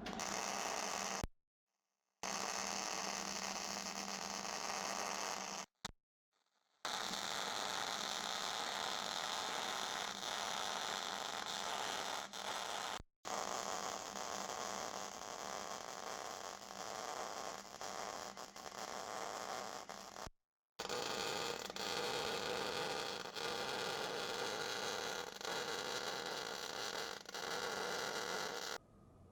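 MIG welding arc from a Hobart Handler 140, a steady crackling hiss. It stops abruptly a few times and starts again.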